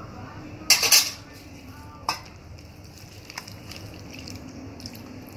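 Raw chicken being hand-mixed into a wet masala and curd marinade in a steel bowl, with steel utensils and bowls knocking together: a loud clatter about a second in, a sharp clink about two seconds in, then a few small clicks.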